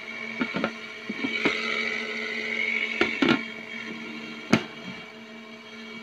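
A mini foldable washing machine's small motor hums steadily while its plastic lid is handled and turned a quarter turn, with several sharp plastic clicks and knocks, the sharpest about four and a half seconds in, and a short rubbing sound in the middle.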